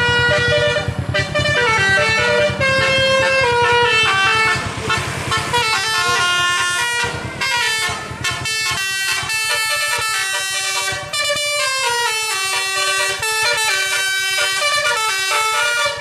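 Tour bus's telolet "Basuri" multi-tone air horn playing a melody, its notes stepping up and down one after another without a break. A low engine rumble runs under it, fading after about eight seconds.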